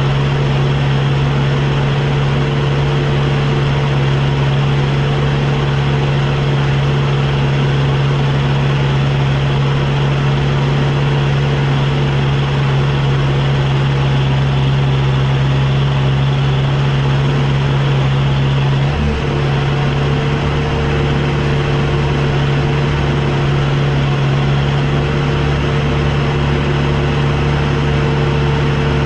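Engine running steadily at a constant speed, with a brief dip about 19 seconds in.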